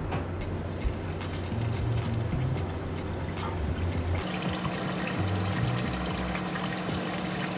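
Battered chicken wings deep-frying in a pot of hot oil: a steady sizzle scattered with small crackles. Background music plays underneath.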